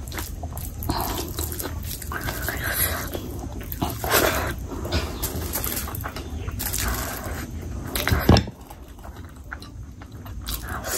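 Close-miked hand-eating of rice and curry: fingers squishing and mixing rice, then wet chewing and lip smacking of a mouthful. A sharp, louder sound comes about eight seconds in, and it is quieter after that.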